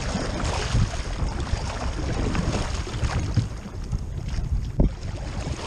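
Double-bladed kayak paddle splashing into the water stroke by stroke, with wind rumbling on the microphone.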